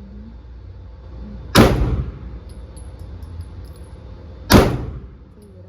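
Two shots from a Glock pistol, about three seconds apart, each a sharp crack with a short ringing tail.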